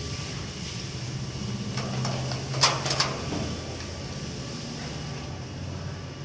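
Steady low engine hum, with two sharp clanks from a steel bar gate about half a second apart midway through.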